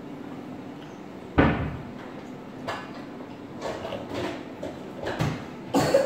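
A plush toy being knocked about on a wooden table: one sharp thump about a second and a half in, then several softer knocks and rustles.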